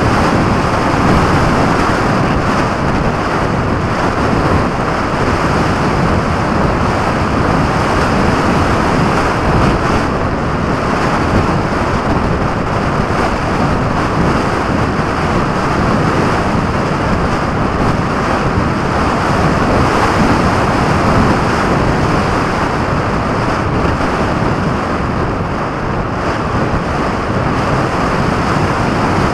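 Wind rushing over a camera mounted under the wing of a radio-controlled model aircraft in flight: a loud, steady rushing noise with no motor tone.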